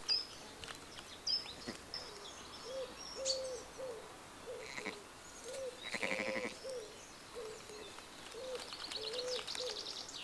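Birdsong: a low cooing bird repeating three-note phrases, short–long–short, over the thin high chirps of small songbirds, with a fast high trill near the end.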